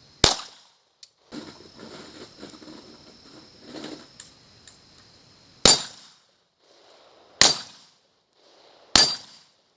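Four sharp pistol shots, each with a brief ringing tail. The first comes just after the start, and the other three come in the second half, about a second and a half apart. Fainter rustling of handling is heard in between.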